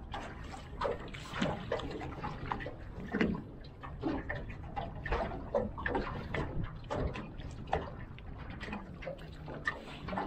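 Irregular water splashing and sloshing at the side of a small boat as a hooked trevally is brought up alongside and netted.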